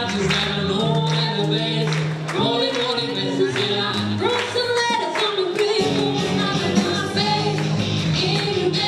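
Live band playing a song with a singer, with drums and amplified instruments.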